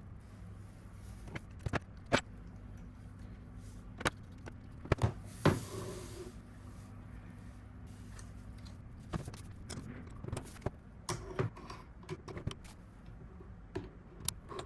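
Camera rig parts being handled and fitted together: scattered sharp clicks and knocks of cage, plate and rod hardware, loudest in a cluster about five seconds in, with a brief rustle just after.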